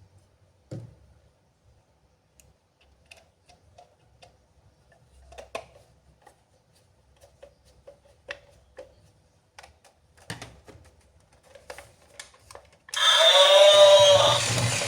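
Faint scattered clicks and handling noises, then about 13 s in a battery-powered toy suddenly starts playing a loud electronic sound whose pitch rises and falls in repeating swoops.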